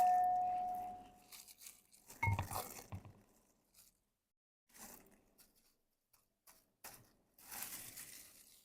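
A utensil clinking against a dish: a ringing tone dies away over the first second, and a second, shorter clink comes about two seconds in. Then soft crunchy rustling and scraping, like dry puffed-rice mix being handled and stirred.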